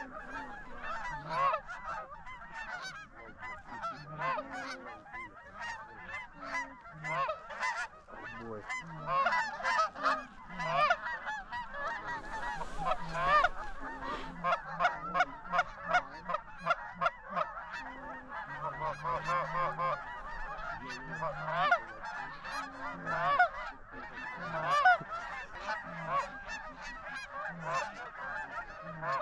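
A flock of Canada geese honking, many short calls overlapping without a break.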